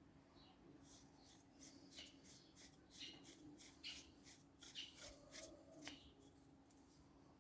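Faint scratchy rustling and scraping of packaging being handled and cut, a quick run of short strokes for about five seconds over a faint steady hum.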